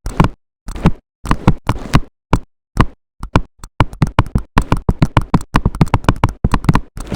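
Slime being squished and poked: a rapid, irregular series of short squelches and pops, getting quicker about halfway through.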